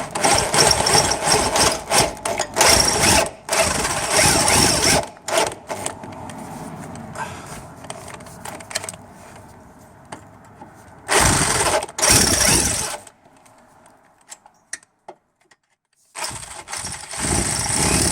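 Electric drill running in bursts while drilling out a rusted, broken bolt that has come loose in its thread. It runs hard, eases off, runs again, stops for a few seconds near the end, then starts again.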